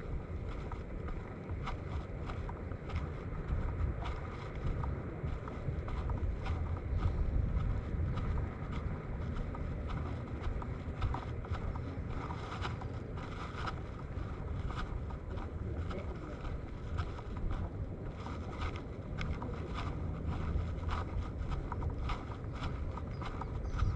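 Wind buffeting the microphone outdoors, a continuous uneven low rumble with a steady rush above it, and scattered short ticks and clicks throughout.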